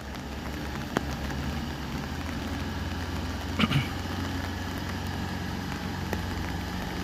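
Diesel engine of a Hino Dutro light truck running at low revs as it creeps along. A steady low hum that grows slightly louder, with a single click about a second in.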